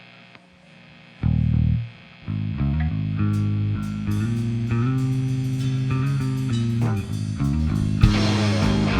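Bass guitar and electric guitar playing in a band's sound check: one bass note about a second in, then from about two seconds held bass notes stepping in pitch under picked guitar notes, with a louder strum near the end.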